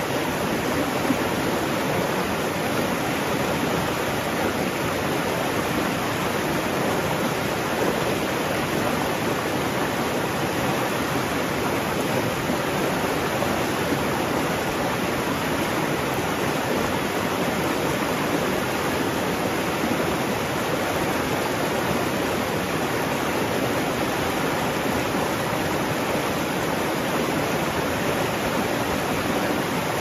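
Rocky mountain stream rushing and splashing over boulders in small cascades: a steady, unbroken rush of water.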